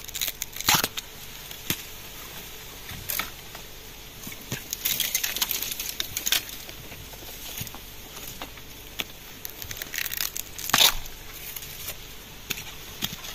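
Dry bamboo leaves and twigs crackling and crunching in irregular bursts as they are trodden on and pushed aside in a bamboo clump, with a thicker run of crackling near the middle and one loud snap a couple of seconds before the end.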